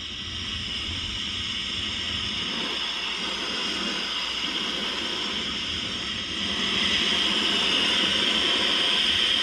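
Lit soldering torch flame hissing steadily, growing louder about six and a half seconds in; it is burning as a big, sharp flame ready to heat the work for sweat soldering.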